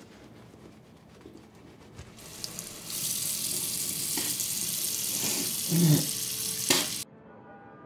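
Faint toothbrush scrubbing, then a bathroom tap running into the sink: the water starts about two seconds in and turns into a steady rush. There are a couple of louder splashes near the end, then it cuts off abruptly.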